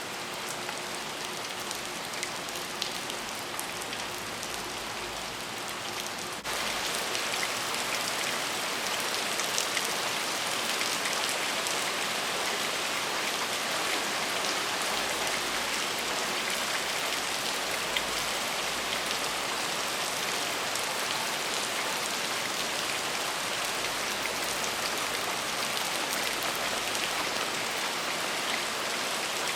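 Steady rain falling, a dense hiss of drops with fine pattering ticks. About six seconds in the rain jumps abruptly louder and stays there.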